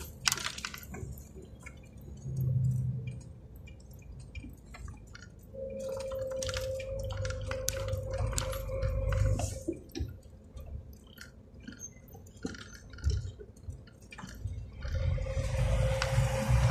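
Inside the cab of a moving Iveco semi-trailer truck: low engine and road rumble that swells and fades, with frequent clicks and rattles from the cab. A steady whine comes in about a third of the way through, stops a few seconds later, and returns near the end.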